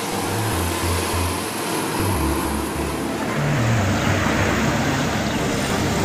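A rice combine harvester running as it travels along a paved road, mixed with the noise of passing road traffic.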